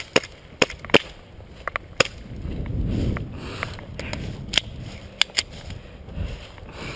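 Scattered sharp cracks of airsoft guns firing, about ten at irregular spacing over the first five seconds. A low rumble of wind and movement swells under them between about two and four seconds in.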